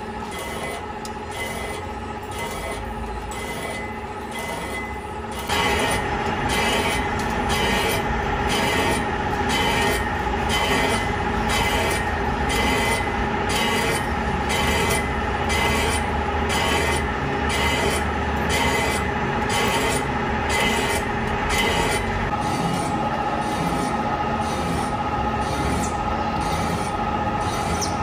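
Horizontal boring mill line-boring a crane part: the long boring bar turns and cuts steel with a steady metallic squeal and a regular pulse a little under twice a second. It gets louder about five seconds in, and its pitch shifts near the end.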